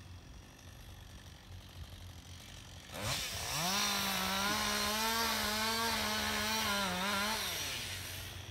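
Two-stroke chainsaw ticking over at idle. About three seconds in it is throttled up sharply and held at high revs for about four seconds, the pitch wavering as it cuts into the trunk of the dead tree being felled. It then drops back toward idle.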